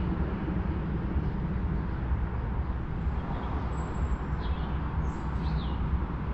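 Steady low rumble of background urban and rail-side noise, with a few faint bird chirps about four to five and a half seconds in.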